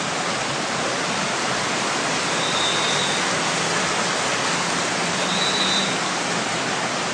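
Steady, even rushing of heavy water during a rainstorm flood.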